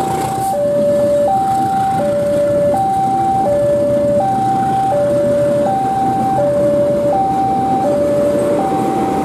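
Railway level-crossing warning alarm sounding its two-tone electronic signal, alternating high and low, each tone held about three-quarters of a second. Under it, the rumble of passenger coaches rolling past over the crossing.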